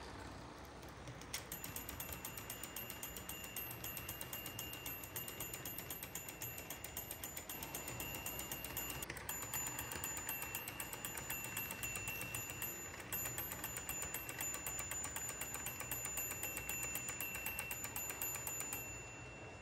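Small electric motor of an HO-scale operating freight-station accessory running, with a fast even ticking and a steady high whine. It switches on abruptly about a second in and cuts off just before the end.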